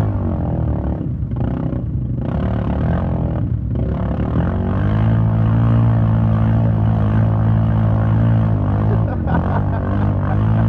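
Side-by-side UTV engine revving hard with its tires spinning in a deep mud hole. The revs dip briefly several times in the first few seconds, hold high and steady for several seconds, then drop and climb again near the end.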